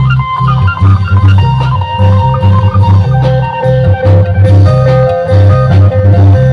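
Isan Phu Tai folk music: a plucked phin lute plays a melody over a driving bass line and long-drum (klong yao) beat.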